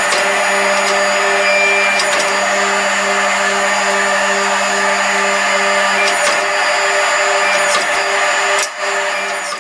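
An electric motor-driven shop machine running steadily with a whine and an even pulsing hum, falling away near the end.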